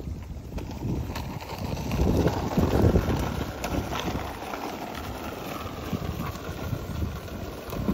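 Small plastic wheels of a toddler's balance bike rumbling over a concrete path, with the hurried footsteps of someone following on foot.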